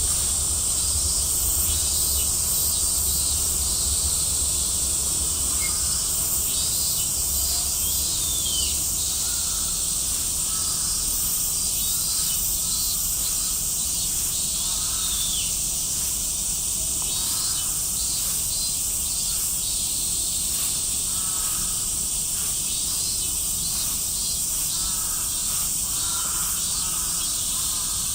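Summer cicadas droning steadily in a high-pitched chorus, with scattered short chirps and pulsing calls over it.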